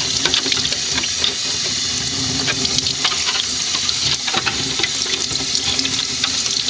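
Water running from a sink tap and splashing over a plastic RC car body as it is rinsed to wash off the loose dirt. A steady rush with small irregular splashes.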